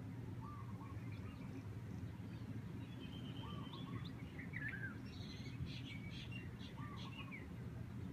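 Several birds chirping and calling on and off in short rising and falling whistled notes, busiest from about three to seven and a half seconds in, over a steady low background rumble.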